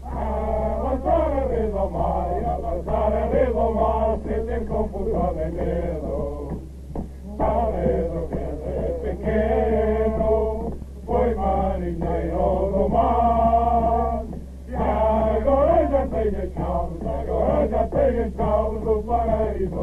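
Group of men singing together in rough chorus, in long phrases with short breaks between them, over a steady low hum.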